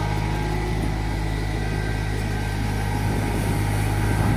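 Small diesel engine of a Solis compact tractor running steadily as the tractor drives over concrete, pushing a loader-mounted sweeper brush.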